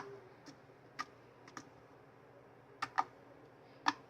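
Homemade slime of white glue and liquid laundry soap being pressed and poked, giving sharp little clicks and pops about every half second, with a pause of over a second in the middle. The clicking is the sign that the slime has turned out well.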